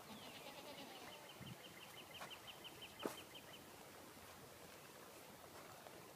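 A faint bird trill: a rapid run of evenly spaced high notes, about eight a second, opening with a short falling note and stopping about three and a half seconds in. A single sharp click about three seconds in is the loudest moment.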